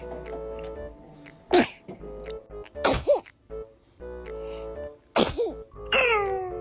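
A baby sneezing: three sharp sneezes about a second or two apart, over light background music.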